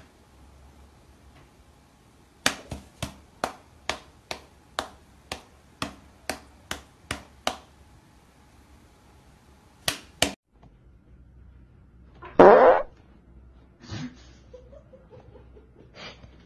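A cat's paws slapping against a person's hand in quick swats, about two a second, with two more slaps a few seconds later. After a cut, a single short, loud noisy burst follows.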